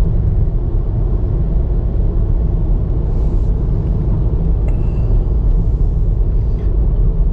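A moving car's road noise: a steady low rumble of tyres and engine on the road.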